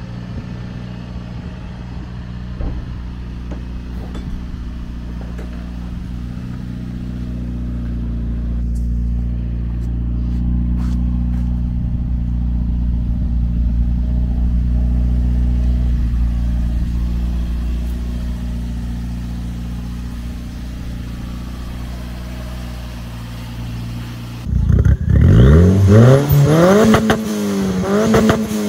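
Turbocharged Toyota Yaris 1.5 with the 1NZ-FE four-cylinder and a K04 turbocharger, idling steadily. Near the end the engine is revved up and down in a few quick blips, heard close to the tailpipe.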